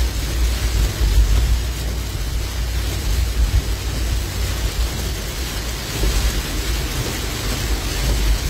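Heavy rain pelting a moving car's windshield and roof, heard from inside the cabin, over a steady deep rumble of the car driving on the flooded road.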